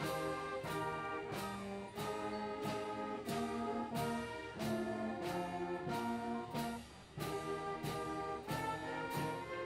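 Stately processional music led by brass with orchestra, playing held chords that change about every second.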